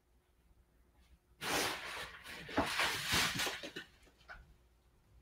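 Rustling and crinkling of plastic packaging being handled, a dense crackle lasting about two and a half seconds from about a second and a half in, followed by a few faint ticks.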